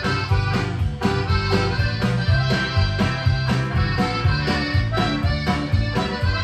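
Diatonic button accordion playing a lively Tex-Mex conjunto melody in an instrumental break with no singing, over the band's bass and guitar on a steady dance beat.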